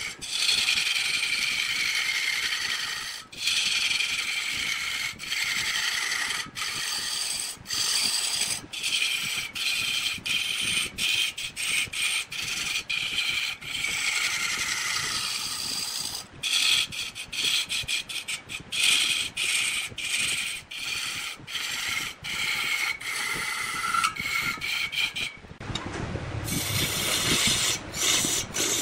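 Wood lathe turning a workpiece while a cutting tool works the spinning wood, making a high squealing whine that slowly shifts in pitch and keeps breaking off briefly. Near the end it changes to a rougher scraping sound.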